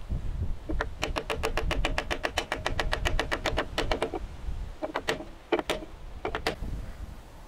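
Hammer tapping on a wooden block set on a new cylinder liner in a tractor's cast-iron engine block, driving the liner down into its bore. There is a fast run of light taps, about nine a second, for some three seconds, then a pause and three short groups of two or three harder blows, each with a short ring.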